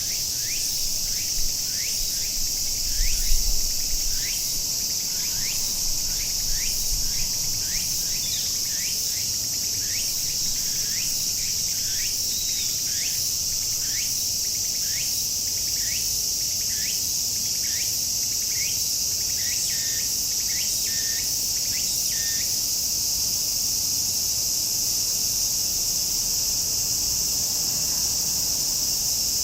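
Chorus of cicadas making a steady, continuous high-pitched drone. Over it, a short rising call repeats about once a second and stops about three quarters of the way through; brief low rumbles come a few seconds in.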